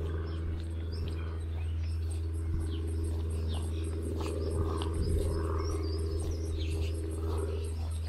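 Birds chirping and calling in short scattered notes over a loud steady low hum.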